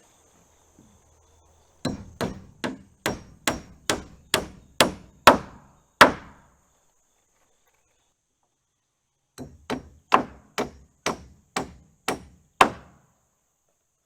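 Hammer driving 3.5-inch smooth nails into wooden porch floor boards: two runs of steady blows, about two to three a second. The first run of about ten strikes grows louder toward its end, and after a pause a second run of about eight follows.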